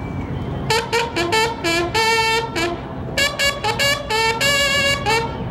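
Bugles of a Mexican banda de guerra sounding a call: two phrases of quick, short notes, each ending on a longer held note.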